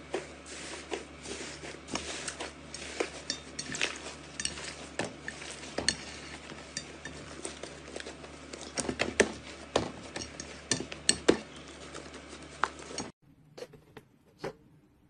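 Slime being squeezed and worked by hand, giving a quick, irregular run of sharp clicks and pops. About thirteen seconds in it cuts off to a much quieter stretch with only a few scattered clicks.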